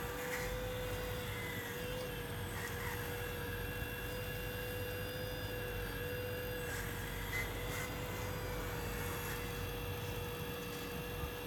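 Scale RC excavator, a Volvo EC360 replica, running with a steady whine from its motor while it swings and digs.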